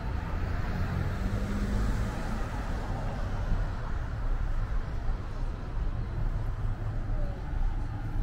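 Steady road traffic noise: cars driving along the street, a continuous low rumble of engines and tyres.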